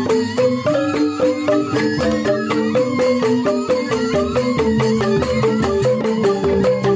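Balinese joged bungbung gamelan playing: bamboo xylophones (grantang) strike a fast, busy melody of stepping notes, with a bamboo suling flute holding tones over it.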